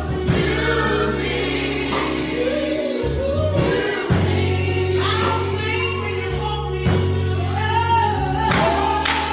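Gospel music: a choir singing over a band, with a bass line and a steady drum beat.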